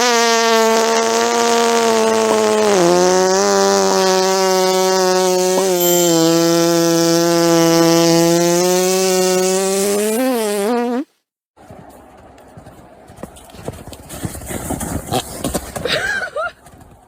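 One long, steady, pitched fart sound lasting about eleven seconds. Its pitch sags slightly a few times before it cuts off suddenly. Much quieter scattered clicks and rustling follow.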